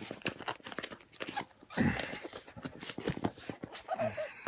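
Cardboard shipping box being torn open by hand: scratching, tearing and rustling of cardboard and packing tape, loudest about two seconds in.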